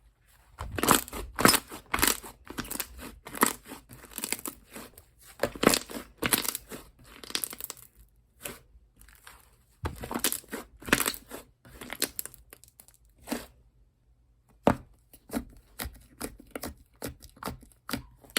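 Slime being squished, pressed and stretched by hand, giving bursts of sticky crackling and popping clicks. It pauses briefly twice, about halfway through and again near three-quarters of the way.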